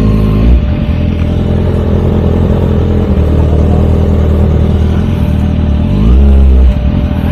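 Motorcycle engine idling close by, with two short throttle blips: one about half a second in and a longer one near the end.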